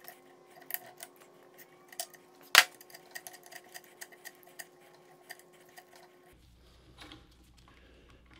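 Small metal-on-metal clicks and taps as hand tools are worked against a Wilton C-0 bench vise body, with one sharp, loud metallic strike about two and a half seconds in. A faint steady hum stops suddenly about six seconds in.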